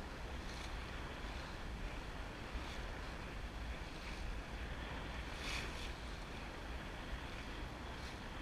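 Water rushing and splashing along the hull of a Drabant 27 sailboat under sail, over a steady low rumble of wind buffeting the microphone. A louder splash comes about five and a half seconds in.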